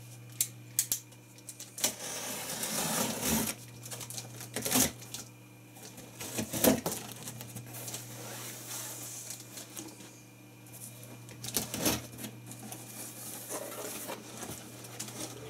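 A box cutter scraping and slitting the packing tape along a cardboard box, with scattered sharp clicks and knocks as the cardboard flaps are worked open.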